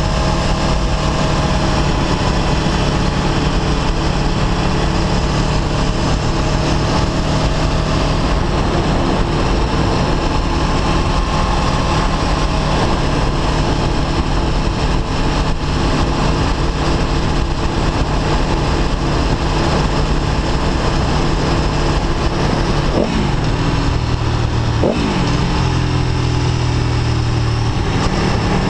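Aprilia Tuono V4 1100 RR's 1077 cc V4 engine running steadily at riding speed, heard from the rider's seat over wind noise. Near the end there are two quick swings up and down in engine pitch a couple of seconds apart, after which it runs at lower revs.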